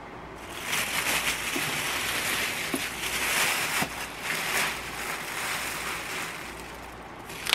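Thin plastic packaging bag rustling and crinkling as it is pulled off an air fryer, starting about half a second in and going on steadily.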